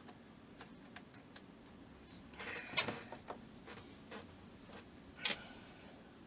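Small model-kit parts being handled on a rotor assembly: irregular light clicks and taps, with the sharpest clicks about three seconds in and again about five seconds in.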